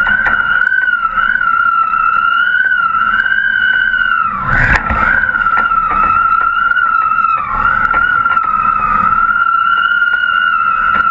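High-pitched whistle from a kite rig in the wind, holding near one pitch with small wavers and sagging briefly in pitch twice, over a low wind rumble that swells once about four and a half seconds in.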